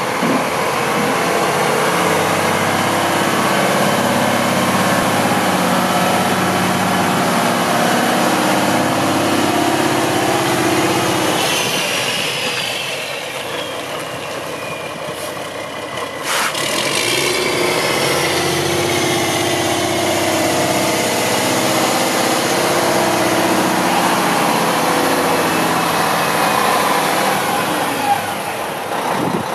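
Diesel engine of a 2003 Mack CH613 tandem-axle day cab tractor running as the truck drives around. It fades as the truck pulls away and grows louder again as it comes back, with a high whine that falls in pitch and later rises.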